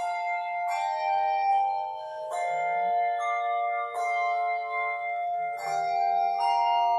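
Handbell choir playing: chords of several bells struck together every second or two, each chord ringing on under the next.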